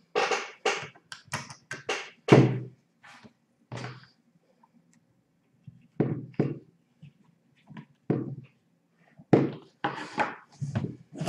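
Irregular clicks and knocks as a grip panel is fitted onto the frame of a Swiss Army Model 1882 revolver and screwed on with a small screwdriver. There is a pause of about a second and a half midway.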